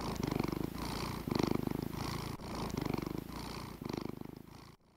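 A domestic cat purring, in about five swells that rise and fall with its breaths, cutting off suddenly near the end.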